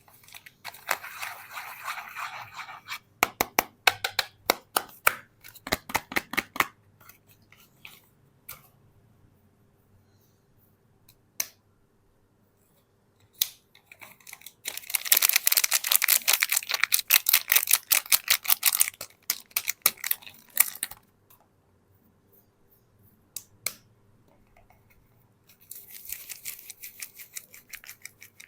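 Soap packaging being opened by hand: bursts of crinkling, scratchy wrapper noise and runs of sharp clicks and taps, with quiet pauses in between.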